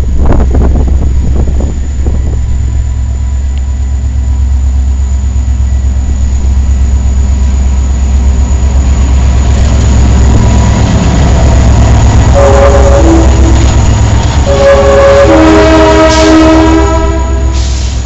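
Diesel-hauled ore train passing close, with a steady low rumble of engine and wheels. The locomotive's multi-note air horn sounds a short blast about twelve seconds in, then a longer one a couple of seconds later.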